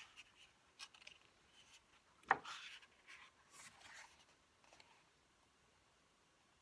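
Faint rustling and soft taps of paper pages being handled and turned in a planner, with one sharper tap about two seconds in.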